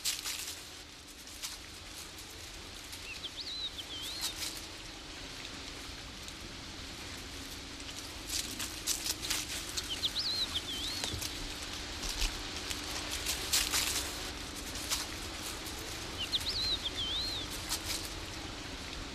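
Iberian wolf pups scuffing and crackling on dry gravel as they tug and chew at a prey carcass, in irregular clusters of sharp rustles. A small songbird repeats a short warbling phrase three times, about six seconds apart, over a faint steady low hum.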